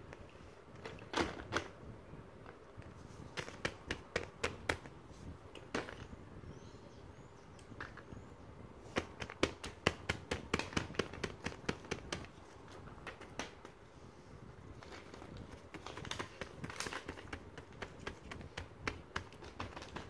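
Silicone pop-it fidget toy bubbles being pressed, a fast run of small popping clicks that comes in several bursts with short pauses between.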